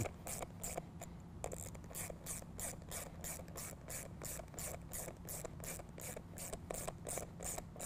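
Hand ratchet with a 7/16-inch socket tightening nuts onto the bolts through a snow plow's rubber blade: a steady run of ratchet clicks, about four a second.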